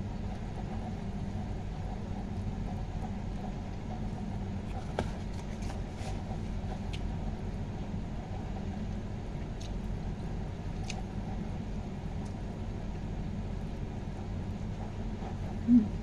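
Steady low hum, with a few faint clicks of a metal spoon against a plastic food tray while eating, and a short louder pitched sound near the end.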